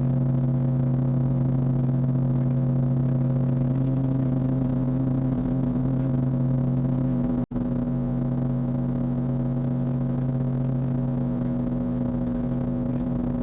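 Cirrus SR22 Turbo's six-cylinder piston engine and propeller in flight, a steady unchanging drone. It drops out for an instant about halfway through.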